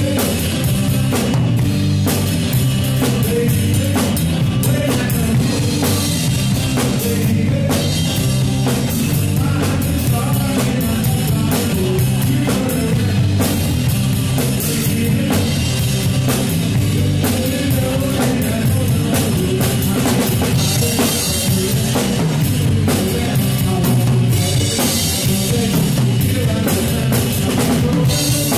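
Live rock band playing at full volume: a drum kit keeping a steady beat under electric guitars.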